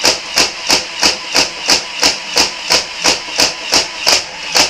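Nerf Vulcan EBF-25 belt-fed blaster firing full auto: its battery-driven motor cycles the plunger in an even run of about three shots a second, each a loud click, over a steady whir of the mechanism, stopping right at the end.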